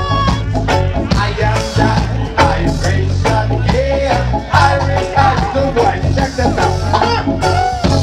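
Live reggae band playing with a steady bass and drum beat, a singer's voice over it through the PA.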